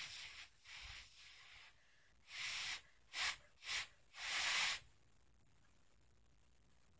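A person's breath: four short airy exhales or puffs of blowing, two of them quick and close together, the last one the longest.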